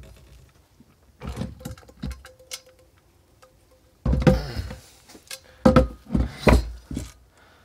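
Heavy finned aluminium base-station module being worked loose and lifted off its metal housing. There are scattered metal knocks and scrapes at first, then a louder run of clunks and thuds from about four seconds in.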